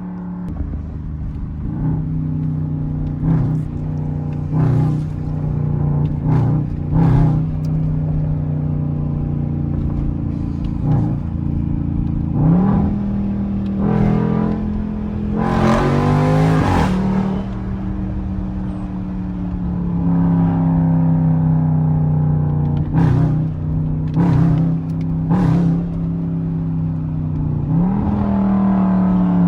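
SRT Jeep Grand Cherokee's V8, made louder, running under way as it pulls through the gears, its note stepping down at each shift. Sharp exhaust pops and crackles come through again and again, with a hard rev surge about halfway through.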